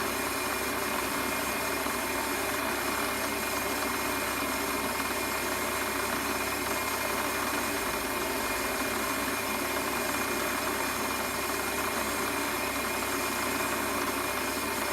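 Warco metal lathe running steadily, a constant machine noise with several steady tones that does not change.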